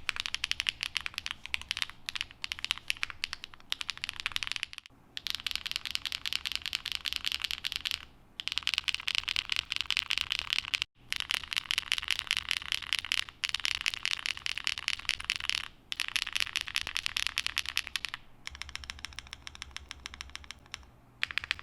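Typing on a custom keyboard with HMX Sunset Gleam (Duck Duck) linear switches, a POM plate and GMK keycaps: a dense run of keystroke clacks as the keys bottom out, broken by short pauses every few seconds. About five seconds in, the typing moves over to the modifier keys.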